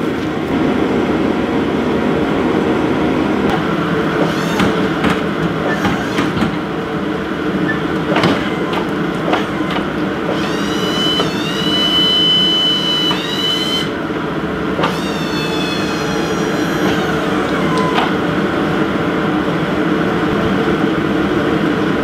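Chevy pickup truck engine idling steadily, with a few sharp knocks from work on the plow. About ten seconds in, a high whine starts, holds for some three seconds and stops, then comes back briefly, falling.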